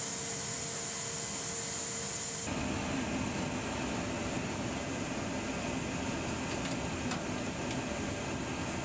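Steady interior noise of a C-17 Globemaster III on the ground. A hiss with a steady hum fills the cargo bay, then cuts abruptly about two and a half seconds in to a lower, broader rumble in the cockpit, with a few faint clicks later on.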